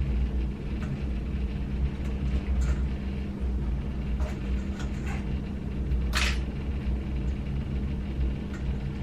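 Steady low hum with a few light clicks and one short scrape about six seconds in: small handling noises.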